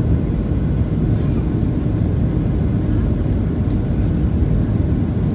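Steady low rumble of a Boeing 737-700's CFM56-7B engines and rushing airflow, heard inside the passenger cabin during the descent to land.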